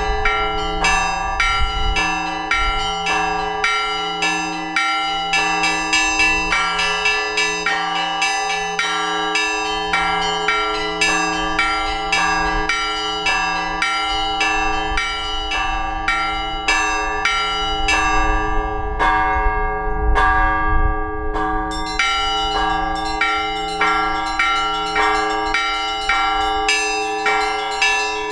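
Russian Orthodox church bells rung together in a peal: a large bell strikes steadily about once a second while smaller bells ring quick, repeated patterns over it. About two-thirds of the way through, the small bells stop for a few seconds and then come back in.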